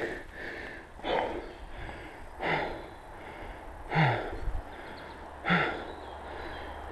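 A person breathing hard from exertion, four heavy breaths about a second and a half apart, each with a slight grunt at the start.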